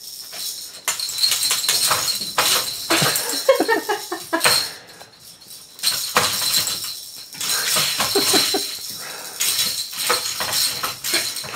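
Baby's feet kicking a plastic rattle toy on a bouncer-seat tray, setting off irregular bursts of rattling and jangling clatter.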